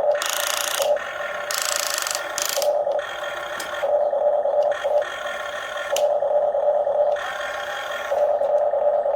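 A radio-controlled toy excavator's electric gear motors whirring in repeated bursts of about a second as its arm and grab are worked, over a steady motor hum.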